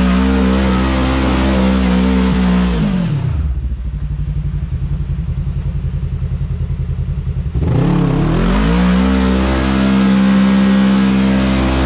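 Side-by-side UTV engine under hard throttle, held high, then dropping back to idle about three seconds in; just before eight seconds it revs up again and stays high.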